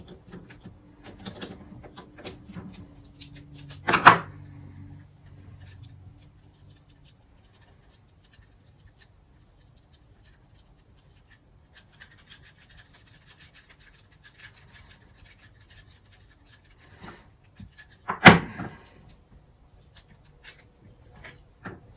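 Hand tools and small metal parts worked on a bench while an outboard carburetor is taken apart: scattered scraping and light clicks, with two sharp knocks, one about 4 seconds in and a louder one late in the stretch.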